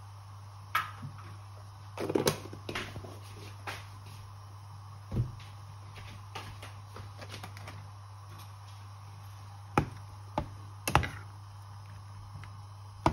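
Scattered clinks and knocks of kitchen utensils against a saucepan and worktop, a few single and some in quick clusters, over a steady low hum.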